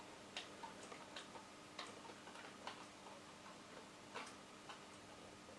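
Faint, irregular clicks of keys being pressed on a vintage Privileg (NCM) desk calculator's keyboard as digits are typed in, about eight presses, over a faint steady hum.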